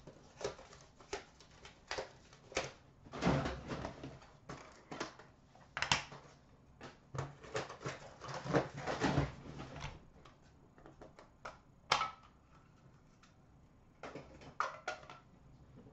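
Trading card boxes and packs being handled by hand: a string of irregular clicks and taps of cardboard and plastic, with a few longer rustles of packaging.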